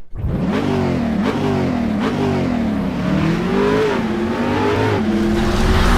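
Car engine revving, its pitch rising and falling several times over.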